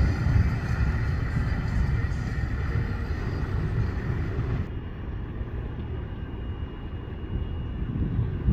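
Twin MerCruiser 6.2 V8 inboard engines of a Cruisers 340 Express cruiser running at slow harbor speed, a steady low rumble. The sound turns duller about halfway through.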